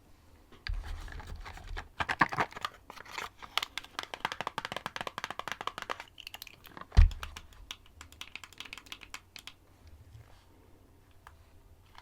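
Crayons scratching in quick, dense scribbling strokes close to the microphone, thinning out after a single sharp knock about seven seconds in.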